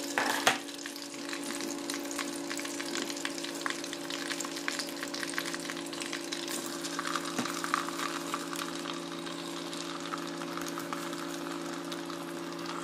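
Hot oil sizzling and crackling in the base of an electric kettle used as a makeshift fryer, with sliced peppers and onion frying in it. There is a sharp burst of crackle right at the start, and the crackling grows busier past the middle.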